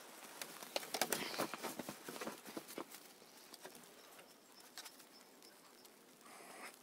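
Light, irregular patter and clicking of paws on a snow-covered wooden swing seat and in the snow, busiest in the first half, with a short soft rustle near the end.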